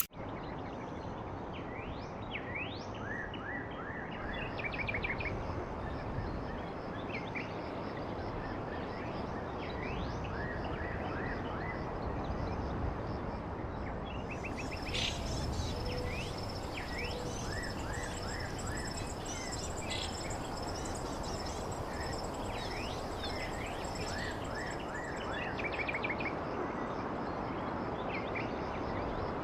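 Outdoor ambience of small birds chirping in short, scattered calls, some in quick runs of four or five, over a steady background hiss. About halfway through, a thin, steady high-pitched whine joins in.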